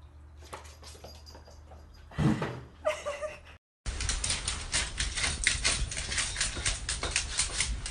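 Small dog panting fast, about six quick breaths a second, after a quieter stretch of room sound with one short low sound.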